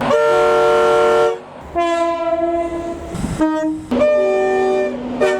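Train horn sounding a quick run of about five notes at changing pitches, with short breaks between them: a driver playing a tune on the horn.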